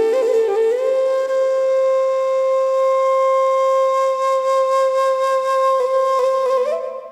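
Background music: a solo flute rising in a few quick steps, then holding one long note for about five seconds before a short turn and a fade near the end.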